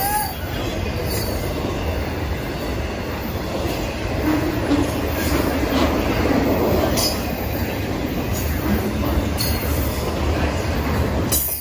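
Intermodal stack train's loaded well cars rolling past at close range: a steady rumble of steel wheels on rail, with a few sharp clanks scattered through it.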